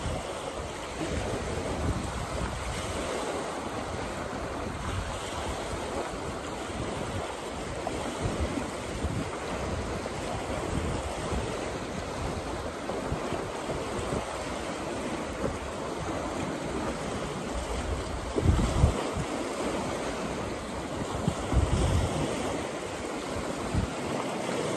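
Choppy lake waves breaking and washing over a rocky, pebbly shore, with wind buffeting the microphone in gusts, two of them stronger about three-quarters of the way through.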